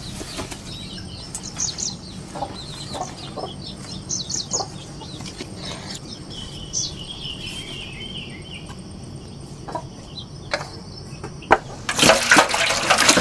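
Chickens clucking, with short high chirping calls among them. Near the end a louder, rough noise comes in.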